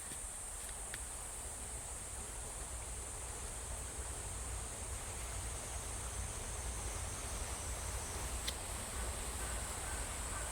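Insects shrilling steadily in one continuous high-pitched tone, over a faint low outdoor rumble, with a couple of faint ticks about a second in and near the end.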